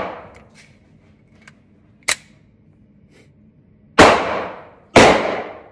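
FMK 9C1 9mm pistol firing two shots about a second apart near the end, each with a long echo. Before them the echo of an earlier shot fades out, and there is a light click about two seconds in.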